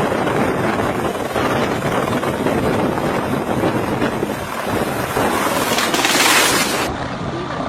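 Helicopter engine and rotor noise mixed with heavy wind buffeting on the microphone. A louder rush of hiss builds about six seconds in, then the sound drops abruptly to a duller noise near the end.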